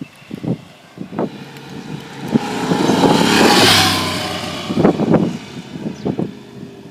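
Triumph Thunderbird Nightstorm motorcycle riding past, swelling to its loudest about halfway through and then fading, with short sharp bursts of engine sound before and after the pass.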